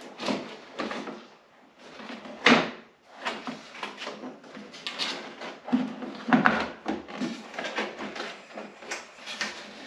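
Irregular clunks, knocks and rattles of parts and tools being handled during snowmobile reassembly, the loudest about two and a half seconds in and again a little after six seconds.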